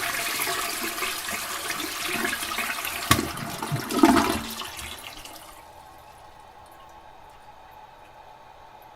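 Toilet flushing: a loud rush of water with a couple of sharp gurgles about three and four seconds in, then dying away about five seconds in to a quieter steady hiss of water.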